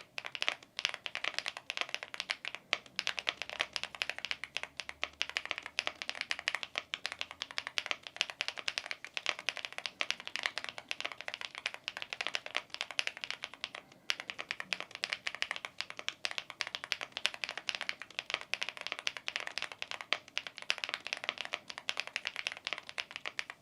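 Typing on a Chilkey ND75 aluminium gasket-mounted mechanical keyboard fitted with its stock silicone O-rings: a rapid, continuous stream of key clacks, with a brief pause about two-thirds of the way in.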